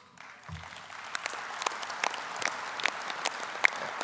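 Audience applauding, many hands clapping. It swells up within the first half second and then holds steady.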